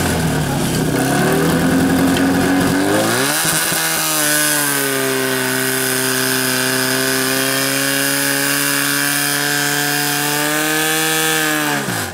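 Portable fire pump's engine running, revved up about three seconds in and held at steady high revs while it pumps water through the hoses to the nozzles, then throttled down sharply near the end.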